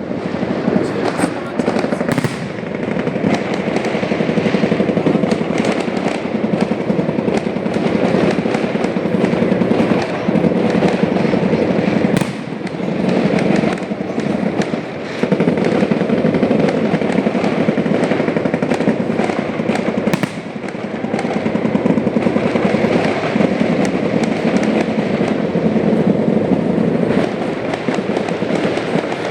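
Fireworks display going off: a dense, continuous run of rapid bangs and crackles that barely lets up.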